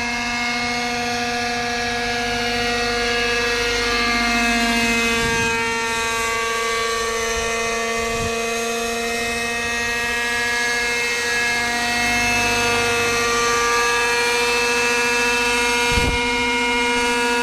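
OS MAX 45 FSR two-stroke glow engine of a Hirobo Falcon 555 model helicopter running in flight. It makes a steady high-pitched buzz whose pitch drifts gently up and down as the helicopter flies out and comes back to a hover.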